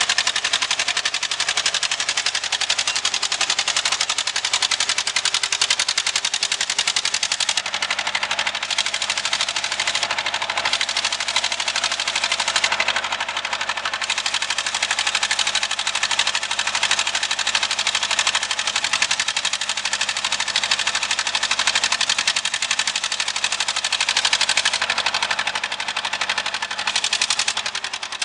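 Mauldin 1500 asphalt paver running and driving, its engine and machinery making a loud, fast, steady clatter.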